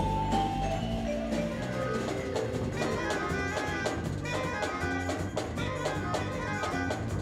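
Jazz band playing live, with a drum kit: a few held notes at first, then a busier passage of quick, short melodic notes over steady drum strokes from about three seconds in.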